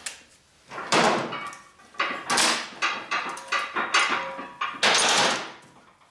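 Workshop handling noises: a series of knocks and scrapes, with louder swishing noises about a second in, around two and a half seconds, and near five seconds.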